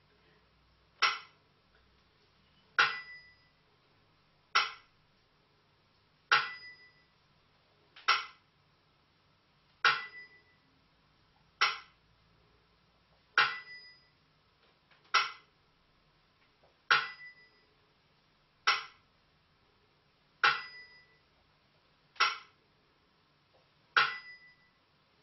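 Burmese si and wa timekeeping beat: a pair of small hand cymbals (si) and a clapper (wa) strike in alternation, one sharp stroke about every second and three-quarters. Every other stroke rings on briefly.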